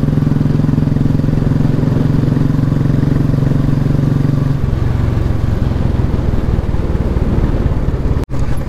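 Royal Enfield motorcycle engine running under way, heard from the rider's seat with wind noise. The note is steady at first; about four and a half seconds in it drops lower and turns rougher, and the sound cuts out for a moment near the end.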